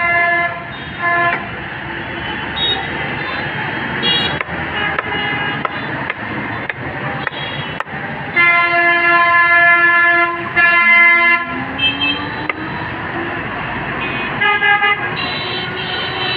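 Vehicle horns honking in busy street traffic: short toots at the start, two long blasts from about 8 to 11 seconds in, and more toots near the end. Under them, a steady traffic noise and a few sharp knocks of a cleaver chopping on a wooden block.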